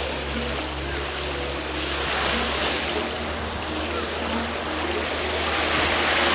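Steady rushing noise that swells twice, over a low steady hum.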